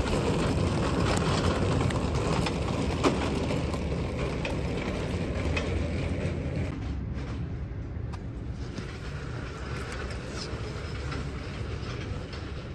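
Loaded shopping cart rolling across a concrete garage floor: a steady rattling rumble of wheels and basket, with one sharper knock about three seconds in.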